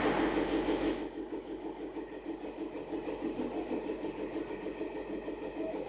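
Compressor nebulizer's pump running steadily with a fast, even pulsing hum, with more hiss in the first second before it settles.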